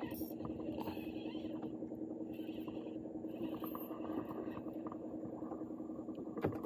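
Steady boat engine hum, with a spinning reel being wound in short spells during the first few seconds as a rod is reeled in.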